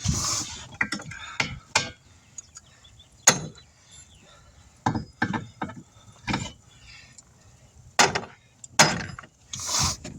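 Irregular metal clanks and knocks from hand tools and tire-changer parts being handled while working a truck tire on its rim. The loudest knock comes about three seconds in.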